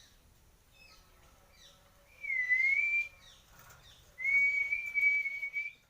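Two long, clear whistles, the first dipping and then rising in pitch, the second held nearly level, with a few faint short falling chirps before them.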